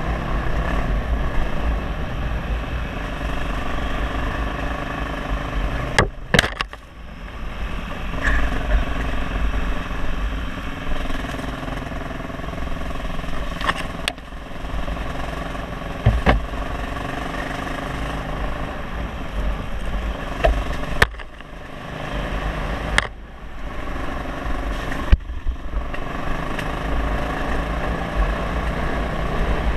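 Off-road motorcycle engine running on a dirt trail, with wind rumbling on the microphone. The loudness dips briefly a few times, and about half a dozen sharp knocks cut through.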